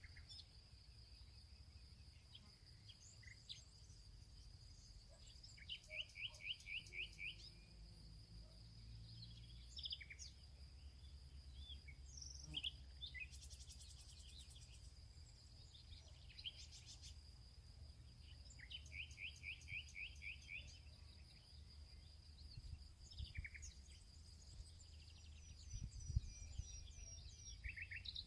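Faint forest birdsong: scattered short chirps and calls, and twice a quick run of about eight evenly spaced notes. A steady high-pitched buzz runs underneath, with a low rumble.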